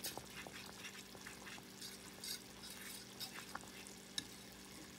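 Cornstarch gravy boiling in a saucepan while a coil whisk stirs it: a faint bubbling hiss with scattered small pops and clicks.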